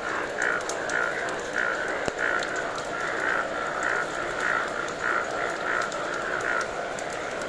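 A chorus of breeding male Indian bullfrogs calling: a regular run of short croaks, about two a second, over a denser background of more frogs. The calling stops near the end. These are mating calls from a rain-triggered breeding gathering.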